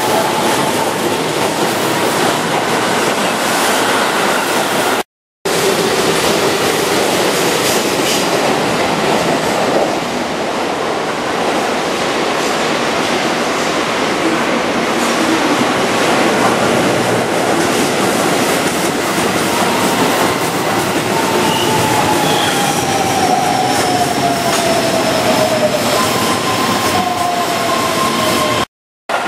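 Keihan 13000-series electric trains running at a station: steady wheel and rail noise over the whine of the traction motors' inverter, which falls in pitch in the second half as a train slows. The sound cuts out briefly twice.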